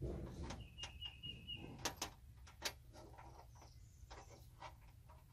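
Hand work on a truck fender while fastening a side-mirror mount: a low bump at the start, then a series of sharp clicks and taps from the mounting hardware and tools, loudest about two seconds in. A short run of high, evenly spaced chirps sounds about a second in.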